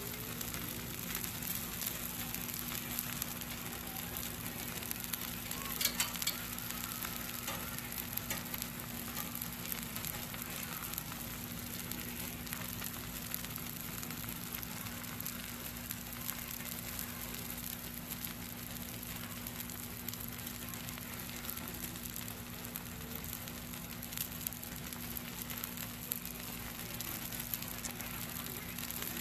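T-bone steaks sizzling on a flat steel griddle over a fire pit: a steady frying hiss with scattered small crackles and pops, one sharper pop about six seconds in.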